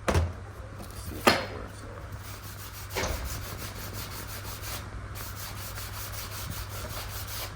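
Hand work at a workbench: rubbing and scraping on material, with three sharp knocks over the first three seconds, over a steady low hum.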